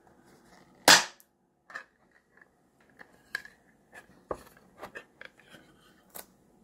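Ring-pull lid of a coconut milk can popping open with a sharp crack about a second in, followed by smaller metallic clicks and knocks as the lid is peeled back and the can handled.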